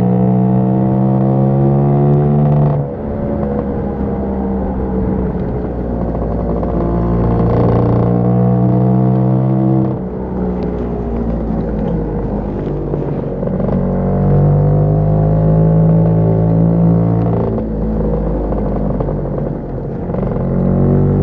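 Lambretta scooter's two-stroke single-cylinder engine running under way, its revs climbing steadily and then falling away sharply several times: about three seconds in, about ten seconds in, and twice near the end.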